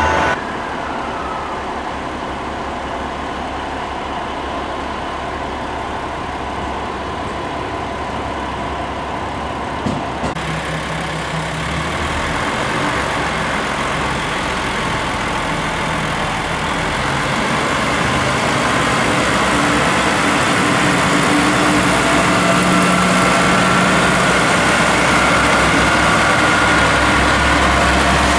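Diesel engine of a JR West KiHa 47 railcar running steadily with a low hum as the train rolls slowly past, growing louder in the second half.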